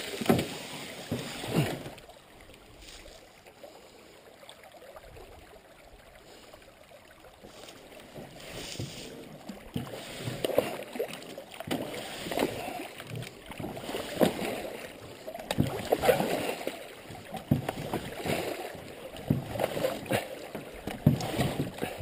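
Canoe paddle strokes in shallow creek water, with splashes and dull knocks. A few strong strokes come at the start, then a quieter stretch, then repeated strokes about once a second from roughly ten seconds in.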